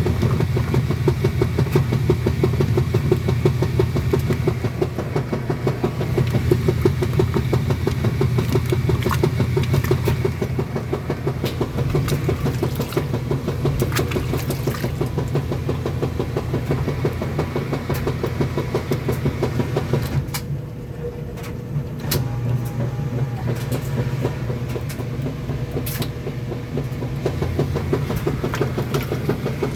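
Kenmore washing machine running through its wash cycle, before the spin: a steady, low mechanical hum with a rapid flutter. About two-thirds of the way through it briefly dips, with a few light clicks.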